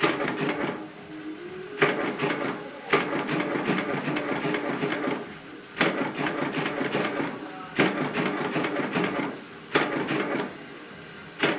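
Incense-stick making machine clattering in repeated runs of one to two seconds, each starting with a sharp knock, about every two seconds, as bamboo sticks are fed through it.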